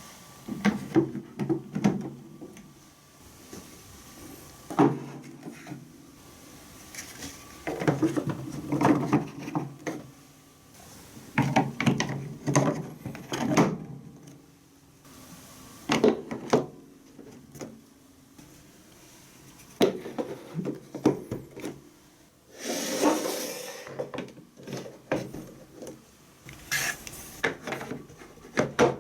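Balls rolling and clattering down plastic TrixTrack wave-slope marble-run track: bursts of rolling rumble and sharp clicks lasting a few seconds each, with short lulls between them.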